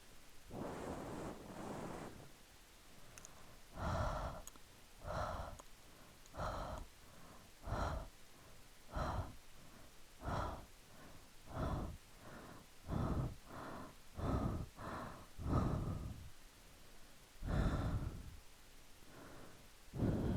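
A person's breathing sounds: soft, longer breaths at first, then a series of short breaths out ('haa' and 'fuu' puffs), about one a second, coming closer together past the middle.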